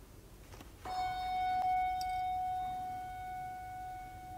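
A bell struck once about a second in, ringing with one clear tone that slowly fades, tolled in remembrance after a name of the departed is read.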